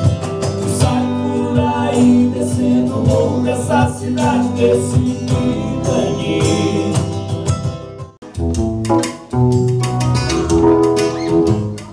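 A small live band playing a song: a man singing over acoustic-electric guitar, keyboard and hand percussion. The music drops out briefly about eight seconds in, then picks up again with heavier bass notes.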